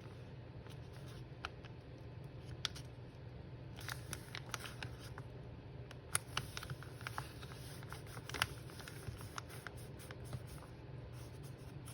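Paper and small craft materials being handled: scattered light clicks and rustles, busier from about four seconds in, over a steady low hum.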